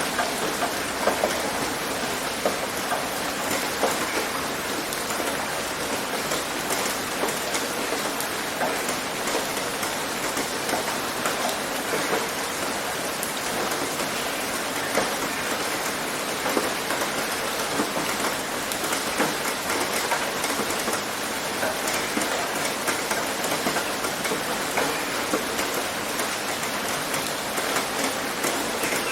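Steady rain pattering on a tin roof, with many individual drops ticking through an even hiss.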